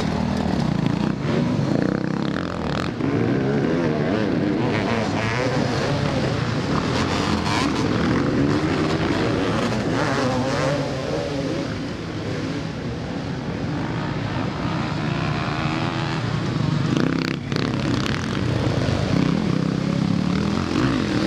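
Motocross bike engines revving hard and easing off through the turns, the pitch climbing and falling with the throttle, with more than one bike on the track.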